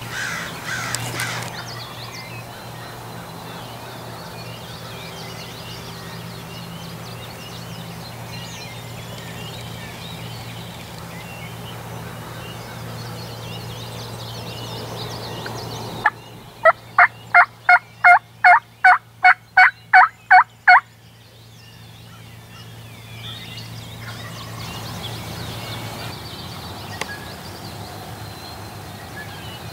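Wild turkey calling: a run of about a dozen loud, evenly spaced notes, roughly three a second, a little past halfway through, over a steady low hum.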